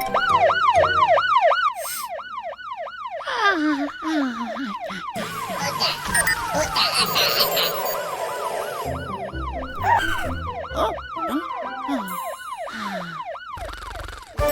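Cartoon siren warbling up and down fast, about three cycles a second, strongest in the first three seconds and coming back more faintly later, mixed with other cartoon sound effects and music.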